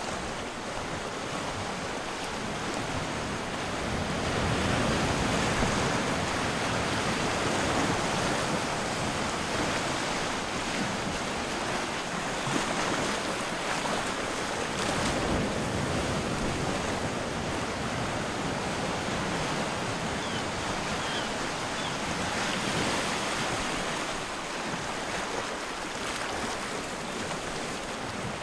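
Steady rushing wind noise that swells louder about four seconds in and eases a little near the end.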